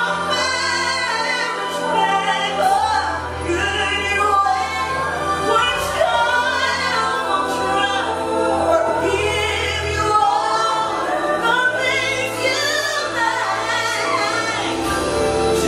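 Three women singing a gospel song in harmony into handheld microphones, over held low bass notes that change every few seconds.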